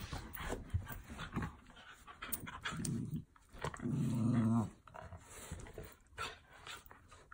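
Schnauzers play-fighting: two low growls about three and four seconds in, the second longer and louder, among panting and the scuffle of paws on carpet.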